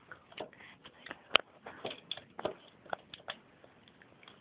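Small plastic Lego pieces being handled and pressed into place: a run of scattered light clicks and taps, the sharpest about a second and a half in.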